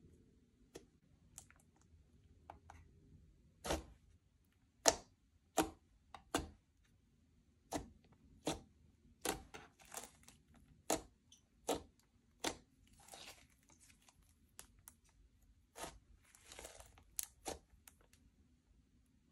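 Slime being kneaded and stretched by hand: a string of sharp, irregular clicks about once or twice a second, with a couple of longer crackling stretches.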